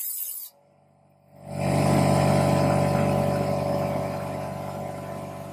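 A loud hiss stops abruptly about half a second in. After a short pause a motor starts and runs with a steady hum, slowly getting quieter.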